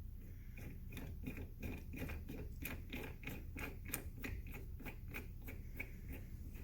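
A rapid, fairly even series of light clicks, about three or four a second.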